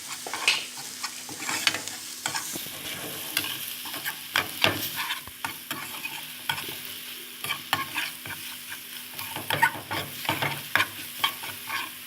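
Minced garlic and dried coriander frying in ghee, sizzling, while a spoon stirs the pan with many irregular scraping clicks against the metal.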